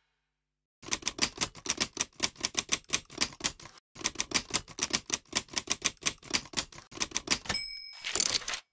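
Typewriter sound effect: keys clacking rapidly, several strokes a second, with a short break about four seconds in. Near the end a bell dings, followed by the sliding rasp of the carriage return.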